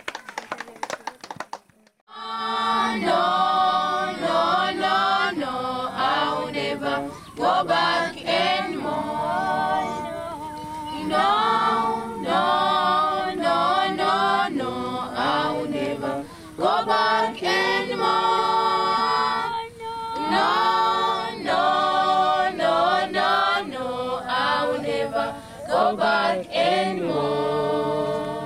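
Unaccompanied choir singing in phrases separated by short breaths, starting about two seconds in after a few sharp clicks.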